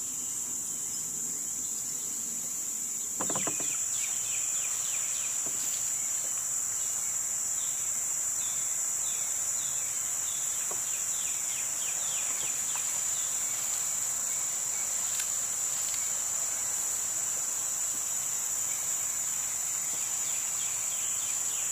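Cicadas buzzing steadily on one continuous high-pitched drone. About three seconds in there is a single knock, and a second, faster layer of quick repeated down-sweeping chirps joins the drone.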